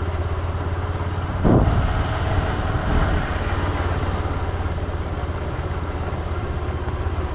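Motorcycle engine running steadily at a low pitch under way, with wind and road noise, and a brief louder sound about a second and a half in.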